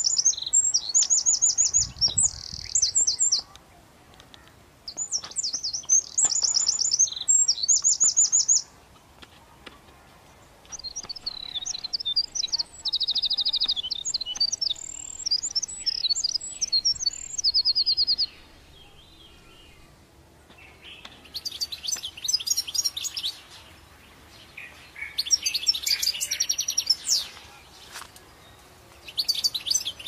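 Songbirds singing: phrases of rapid, high trills and chirps a few seconds long, with short pauses between them.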